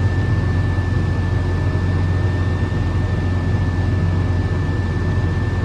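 Heavy harvest machinery running steadily: a constant low engine hum with a thin, steady high whine over it.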